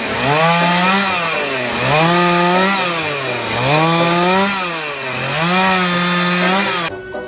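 A small engine revving up and dropping back again four times in a steady rhythm, over a hiss, cutting off abruptly near the end.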